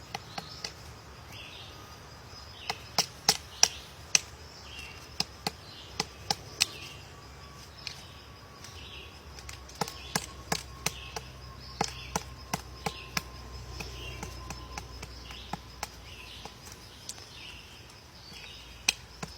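Woodpecker chiselling into a tree: sharp, irregular knocks of its bill on wood, coming in loose clusters with short pauses between.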